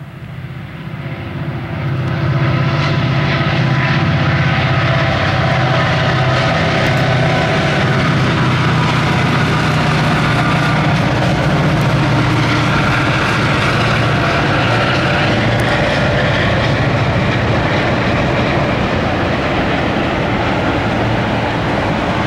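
EMD SD50 and SD40-3 diesel-electric locomotives pulling a freight train past, their two-stroke diesel engines running with a low, steady drone. The sound grows over the first couple of seconds as the engines approach, then stays loud. Toward the end the freight cars roll by with steady rail noise.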